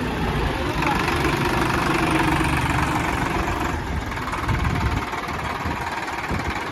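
Sonalika DI 745 III tractor's three-cylinder diesel engine running steadily as the tractor drives at low speed, getting a little quieter from about four seconds in as it slows to pull up.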